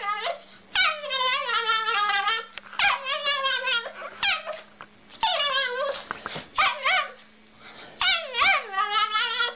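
Small poodle-type dog howling in a string of about six long, high, wavering calls, each lasting up to a second and a half, with short gaps between them.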